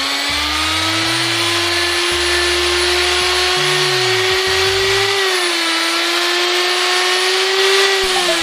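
Corded electric hand drill running with a polishing wheel in its chuck, buffing an aluminium motorcycle engine block: a steady high motor whine. Its pitch dips slightly about five seconds in, then falls as the drill slows near the end.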